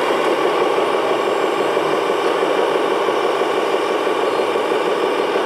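Steady diesel-engine running sound from the sound units of radio-controlled scale construction models, a model wheel loader working beside a model dump truck.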